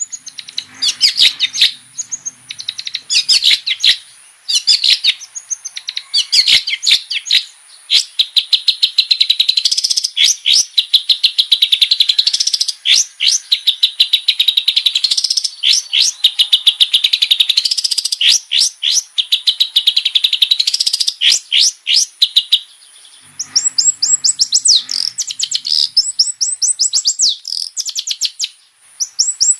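Long-tailed shrike (cendet) in full song: long runs of rapid, chattering trills broken by short pauses, the trills turning higher-pitched in the last few seconds.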